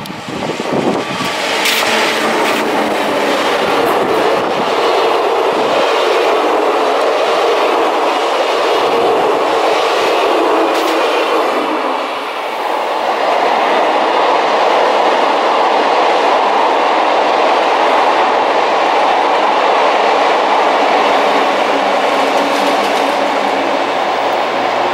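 SNCF BB 17000 electric locomotive and its VB2N double-deck coaches running past, with wheels clacking over rail joints in the first half. The noise dips briefly about halfway through and then returns as a steady rolling rumble of another BB 17000-hauled train.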